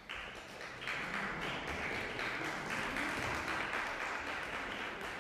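Audience applauding: many hands clapping, starting suddenly, growing fuller about a second in, then slowly tapering.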